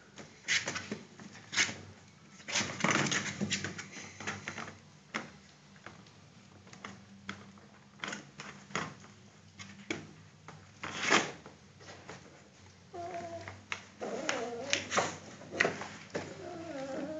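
Belgian Malinois puppies moving about on flattened cardboard: irregular scratching, tapping and crinkling of paws and bodies on the cardboard. In the last few seconds there are short, wavering whimpers.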